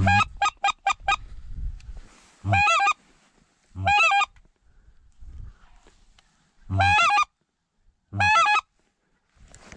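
Mouth-blown goose call blown close by, imitating wild geese to draw them in: a quick run of five short honks, then four longer single honks spaced out over the following seconds.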